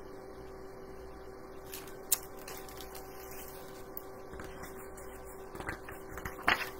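Low steady hum with faint rustling and a sharp click about two seconds in, from a picture book's pages being handled.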